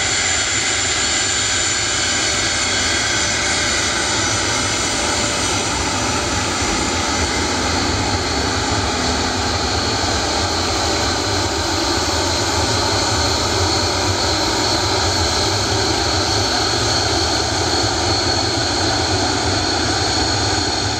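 Avro RJ100's four turbofan engines running at low power as the airliner taxis after landing: a steady jet whine over a constant rush of noise.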